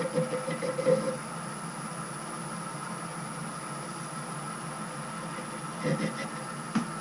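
Metal lathe running steadily while turning an aluminium ball handle. A louder ringing tone sounds over the first second, and two short knocks come near the end.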